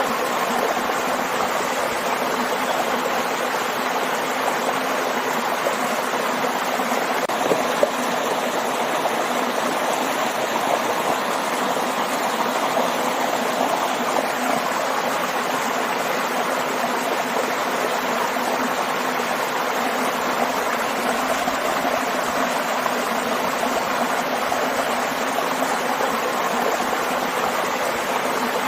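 Waterfall and stream rushing steadily, an even splashing wash of water with no pauses.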